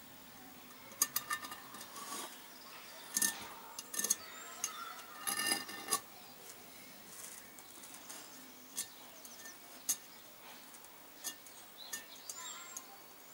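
Short, irregular scrapes and light metallic clicks of a small hand tool worked along the edge of a Kawasaki twin's cylinder block, cleaning up the head mating surface. The scraping comes in bursts over the first half, then only a few scattered clicks.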